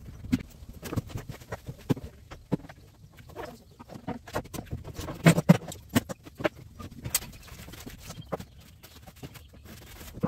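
Footsteps on the shop floor with scattered knocks, taps and clatter of small objects picked up and set down on a workbench, the loudest knocks coming a little past halfway.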